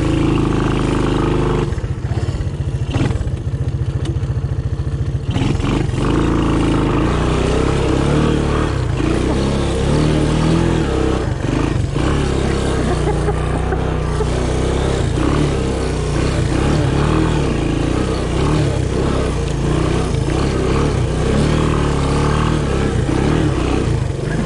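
Honda ATC 200M three-wheeler's single-cylinder four-stroke engine running as it rides a muddy trail, dropping to a slow chug between about two and five seconds in, then picking up again and running steadily.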